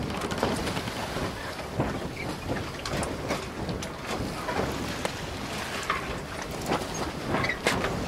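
Wind rumbling on the microphone, with scattered creaks, squeaks and knocks from an iron kinetic sculpture as its arm, wheel and panel swing round.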